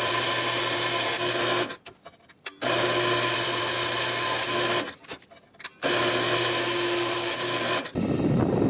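Electric drill running in three spells of about two seconds each, stopping between them, with a faint high squeal now and then: drilling the pin holes in a steel knife tang. Near the end a low rushing noise takes over.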